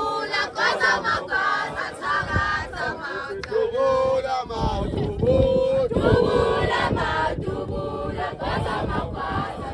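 A crowd of men and women singing and chanting together, a traditional Zulu ceremonial song with some sharp sounds mixed in.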